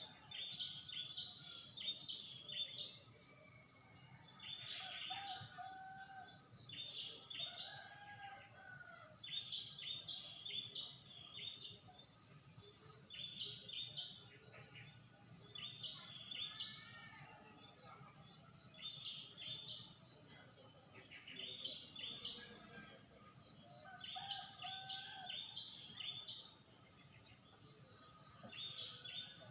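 Outdoor ambience: a steady high-pitched insect drone, with short bird chirps in quick clusters every second or two and a few lower, curving bird calls.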